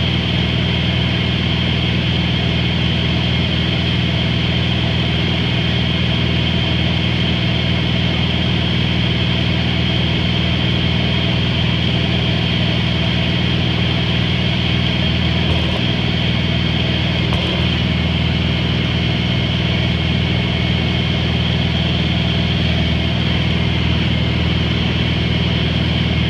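Light aircraft's engine and propeller running as a steady, unchanging drone, heard from inside the cabin in cruise.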